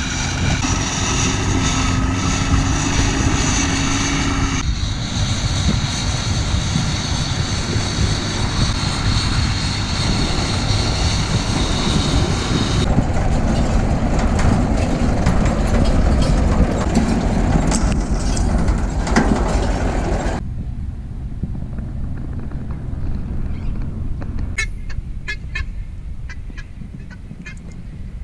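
Farm tractors running with haymaking machinery. First a tractor engine runs with a steady whine while towing a round-bale wrapper; after cuts, a tractor and round baler run. Near the end the machinery noise drops to a lower, noisier background with a few short sharp sounds.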